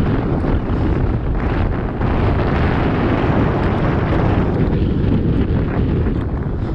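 Loud wind buffeting the microphone: a steady, heavy rumble with no clear tones.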